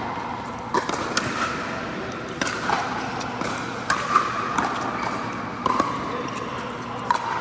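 Pickleball rally: paddles striking the hollow plastic ball with sharp, irregular pops, some in quick pairs, each with a short hollow ring, over a steady hall background.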